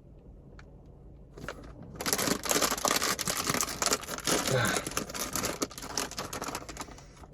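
Doritos chip bag crinkling and tearing as it is opened and handled, a dense crackle that starts about two seconds in and lasts about five seconds, after a few light clicks.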